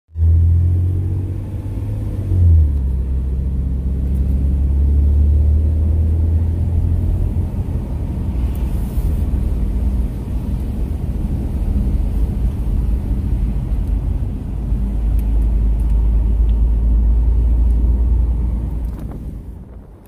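Car on the move, a steady low engine and road rumble whose pitch steps down once about two and a half seconds in, fading near the end.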